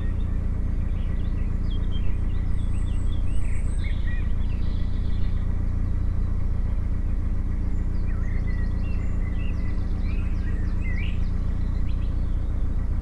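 Narrowboat engine running steadily under way, an even low drone, with small birds chirping and singing over it.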